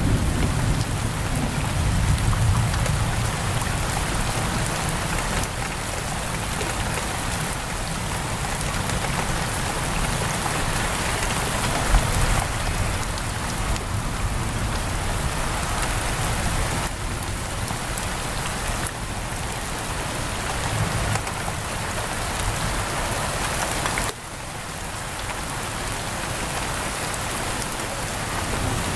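Heavy rain pouring steadily on a window. A low rumble of thunder fades over the first few seconds.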